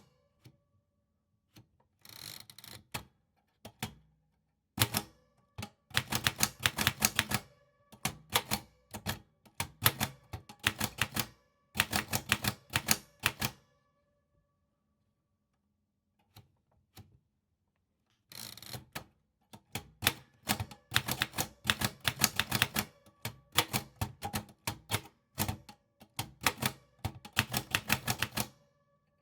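Typewriter keys clacking in quick runs of about eight to ten strokes a second, stopping and starting between words. A longer pause comes about halfway through, and a brief rasping sound comes near the start and again before the last long run.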